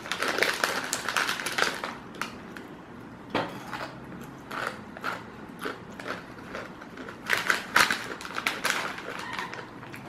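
Plastic Mamee Monster snack packet crinkling and rustling as it is squeezed and handled, with crunching of the dry instant-noodle snack inside. The rustling comes in irregular bursts, loudest about a second in, about three and a half seconds in, and around seven to eight seconds in.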